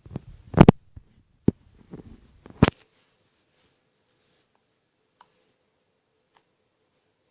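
Borax slime being squeezed and worked, giving a run of loud pops and squelches, the loudest just under a second in. After about three seconds only a couple of faint clicks remain.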